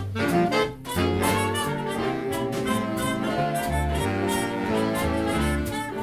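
Jazz big band playing: a saxophone section and brass playing ensemble phrases over a walking low bass line, with a brief break a little under a second in.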